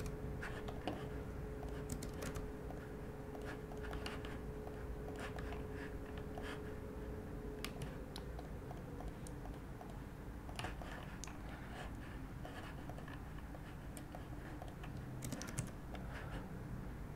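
Scattered, irregular clicks of a computer keyboard and mouse being worked, over a faint steady hum that stops about halfway through.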